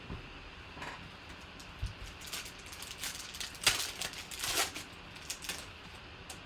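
Trading cards being handled and slid against one another, with scattered light clicks and rustles; the loudest come a little under four seconds in and again around four and a half seconds.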